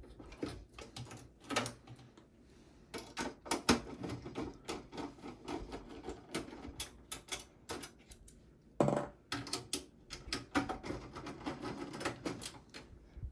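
Irregular plastic and metal clicks, taps and rattles of hands working inside a desktop PC case, unplugging the SATA power cable from the hard drive. There is a busier run of clicks about nine seconds in.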